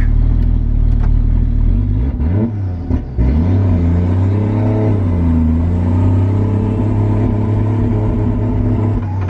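Toyota 1JZ-GTE VVT-i turbo straight-six in a Nissan Silvia S15, heard from inside the stripped cabin while driving. It runs steadily, drops in pitch and level around two to three seconds in as the throttle comes off or a gear changes, then climbs and falls again before settling. The engine is running very rich, untuned.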